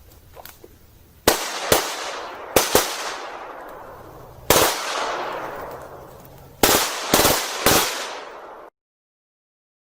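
Machine gun firing short bursts of one or two shots, about eight shots in all, each followed by a long rolling echo; the sound cuts off abruptly near the end.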